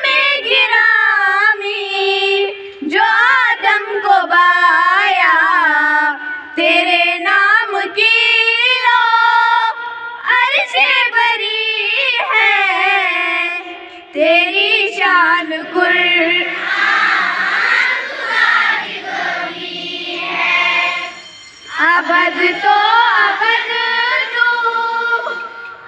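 Children singing an Urdu devotional song in sung phrases with short pauses between, the voices thickening into a fuller group sound about two-thirds of the way through.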